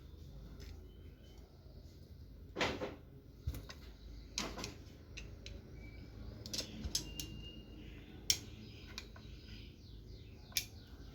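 Scattered light clicks and taps from handling a blender motor's parts and a plastic cable tie, a dozen or so irregular knocks over a low background hum.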